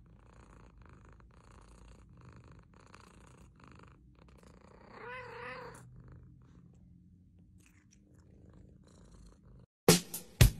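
Domestic cat purring softly and steadily as it is stroked, with one short, wavering mew about five seconds in. Near the end, music with a hard, sharp beat cuts in.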